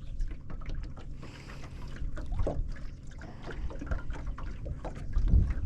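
Wind rumbling on the microphone aboard a small aluminium jonboat, with water lapping and ticking against the hull; the rumble grows louder near the end.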